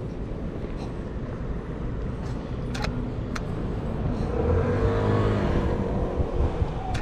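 Street traffic with a car passing close by: its engine note swells about four seconds in and fades again near the end, over a steady low rumble. A few sharp clicks come in the middle and at the very end.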